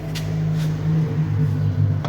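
A motor running with a steady low hum whose pitch wavers slightly, with a few light clicks on top.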